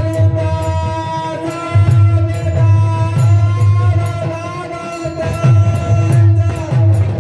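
Live folk music played over a PA loudspeaker: a long-necked plucked string instrument over a steady drone, with a melodic line and deep drum beats keeping a rhythm.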